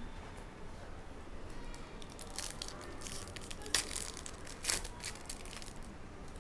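Foil wrapper of a trading card pack crinkling as it is handled and torn open, with two sharper, louder crackles about four and five seconds in.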